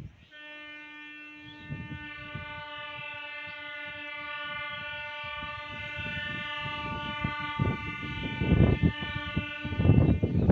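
Indian locomotive horn sounding one long, steady note for about nine seconds as a train approaches, growing louder. A low rumble builds beneath it and is loudest near the end.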